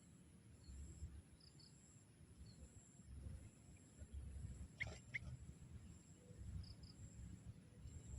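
Mostly quiet, with a low rumble, broken by two quick sharp chirps from a young sooty-headed bulbul about five seconds in; a few fainter high chirps come earlier and later.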